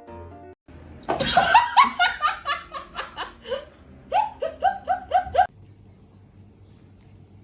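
A person laughing in a run of short, rhythmic bursts that start about a second in and stop at about five and a half seconds.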